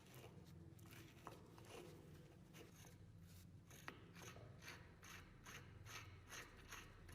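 Faint rhythmic strokes of hand-tool work on metal, settling into about three strokes a second from about two and a half seconds in.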